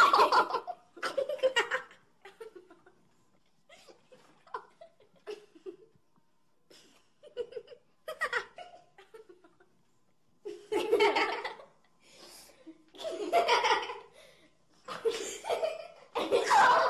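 Human laughter in repeated bursts, loud at the start and again through the second half, with quieter giggles in between.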